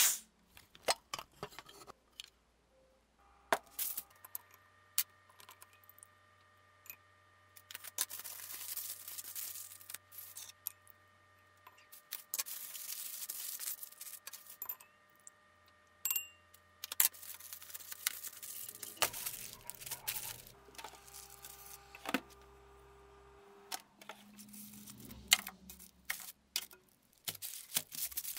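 Aluminium foil rustling and crinkling in spells as it is handled, among scattered light clicks and taps.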